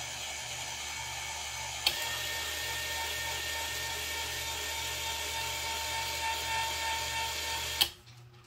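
Linear actuator's electric motor running with a steady whine as it drives the coop door. About two seconds in a relay clicks and the whine carries on slightly louder and at a different pitch. Near the end a second click comes and the motor stops at once.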